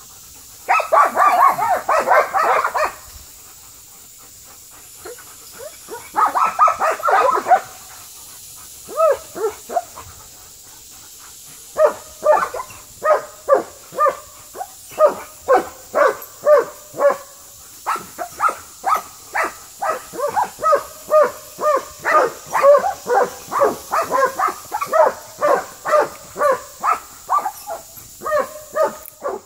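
Puppy barking over and over: two short dense flurries first, then a long steady run of single barks about two a second.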